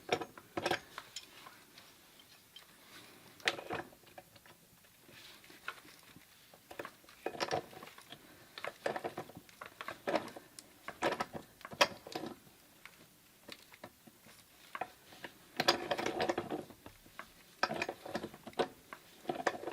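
Irregular metal clicks and clanks of a pipe wrench and channel-lock pliers being fitted and worked on a dielectric union and the fitting behind it, to loosen the union from the pump's supply pipe. The clicks come in small clusters, the busiest near the middle and again about three quarters of the way through.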